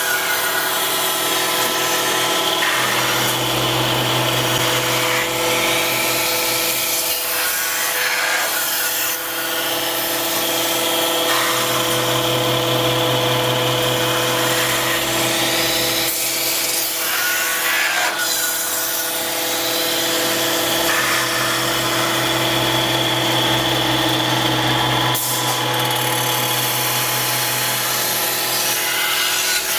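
Metal-spinning lathe running, with the forming roller rubbing against the spinning sheet-metal bell: a steady machine hum with several steady tones under a scraping rub. A deeper hum switches on and off several times, each stretch lasting a few seconds.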